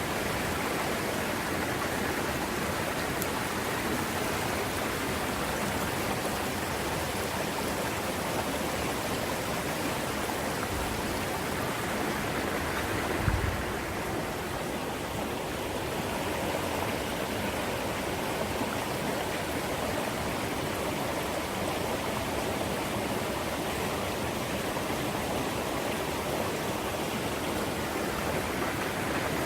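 Mountain valley stream water rushing steadily. A brief low thump about halfway through.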